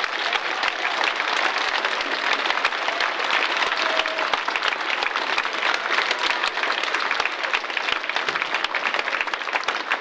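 Theatre audience applauding: many hands clapping in a dense, steady ovation.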